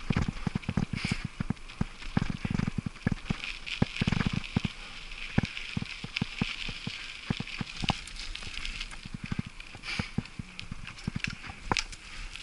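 Mountain bike rolling along a gravel dirt track: the knobby tyres crunch and hiss, and the bike rattles with a steady run of irregular clicks and knocks over the bumps, with heavier thumps about two and four seconds in.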